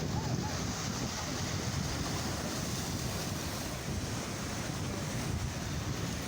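Sea waves washing steadily on the shore, with wind rumbling on the microphone.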